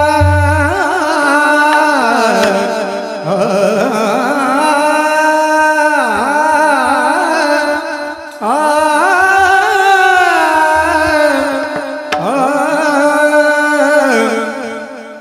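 Warkari kirtan singing: a singer draws out long, gliding, ornamented notes over instrumental accompaniment, pausing briefly about eight and twelve seconds in.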